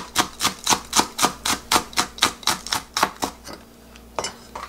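Kitchen knife quickly chopping green onion on a cutting board, about four chops a second, stopping a little after three seconds in; a single knock near the end.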